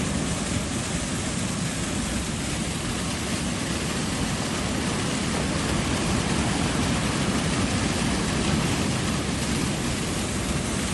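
Waterfall rushing: a steady, unbroken wash of falling water with a deep rumble underneath.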